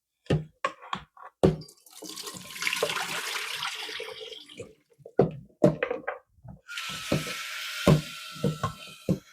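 Tap water running in two spells, from about two seconds in and again from about seven seconds, over raw peanuts being washed in a pot. Sharp knocks and clatter of the peanuts and pot come between and through the running water.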